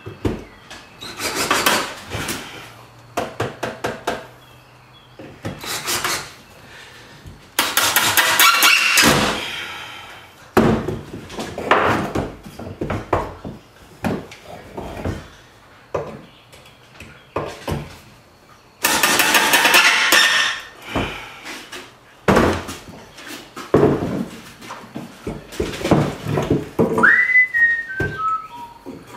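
Cordless drill driving screws into a wooden frame, in two long runs of a couple of seconds each, with knocks and clatter of the wood and tools on a workbench between them. Near the end comes a brief whistle falling in pitch.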